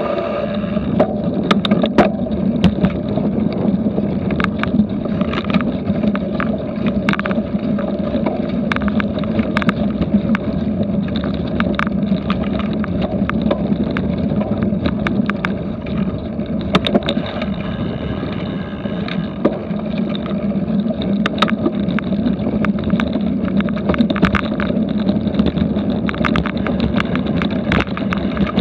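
Steady wind rush on the microphone of a cyclocross bike ridden fast over bumpy grass. Frequent short clicks and knocks come from the bike jolting over the ground.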